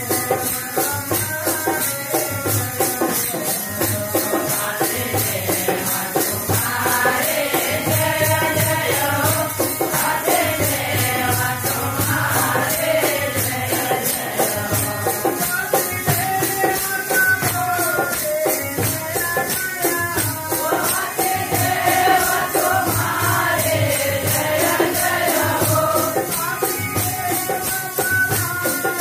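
Devotional bhajan kirtan: voices singing a melody over a fast, even jingling of hand percussion and a low pulsing beat, all continuous.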